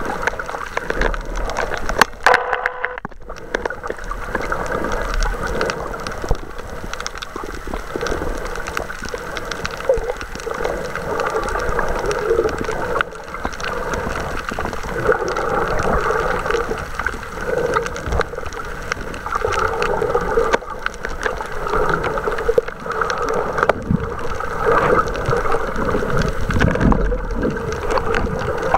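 Water sloshing and gurgling around a camera held underwater, steady throughout, with a single sharp click about two seconds in.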